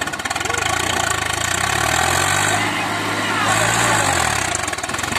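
Tractor diesel engine running under load while the tractor is bogged in deep paddy-field mud. Its revs rise and fall around the middle.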